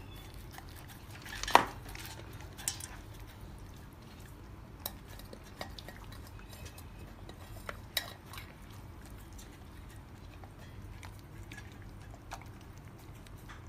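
A golden retriever eating from a stainless steel bowl makes a few scattered sharp clinks and knocks on the metal, the loudest about a second and a half in. Faint room noise lies underneath.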